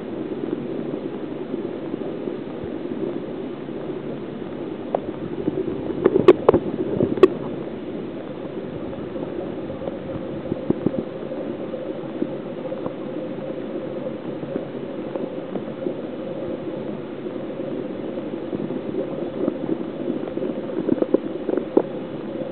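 Steady gurgling of water in a sea urchin holding tank, with a short cluster of sharp clicks about a quarter of the way through and a few more near the end.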